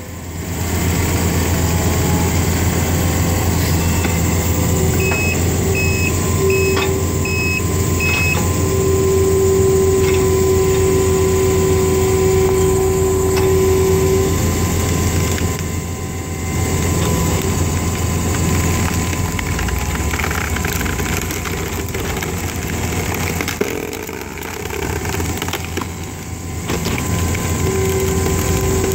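Takeuchi compact track loader's diesel engine running steadily under load while its Atom Splitter screw cone bores into and splits sweet gum logs. A steady whine comes in about five seconds in, runs for about nine seconds and returns near the end, and five short beeps sound between about five and eight seconds in.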